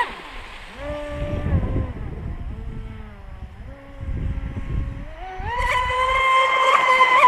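Brushless electric motor and propeller of an RC outrigger speed boat whining across the water. The whine drops sharply as the throttle comes off, shifts between lower pitches, then climbs a little after five seconds in to a high steady whine at full throttle.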